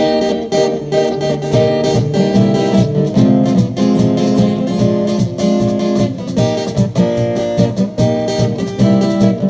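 A band playing an instrumental introduction to a carnival marchinha, led by strummed acoustic guitar. Lower notes join about a second and a half in.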